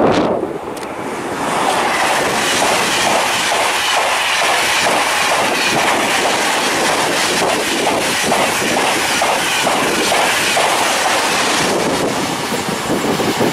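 Double-unit TGV Duplex and EuroDuplex high-speed train passing at speed close by, with a steady rush of wheels on rail and a rapid, regular clatter as the bogies go over the track. It builds about a second and a half in and eases slightly near the end as the tail goes by.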